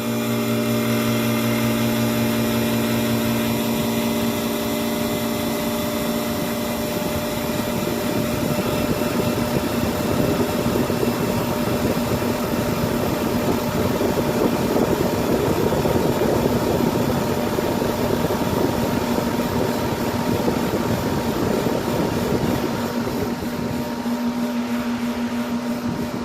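Air-conditioning compressor running steadily just after switching on: a steady hum with overtones over a rushing noise.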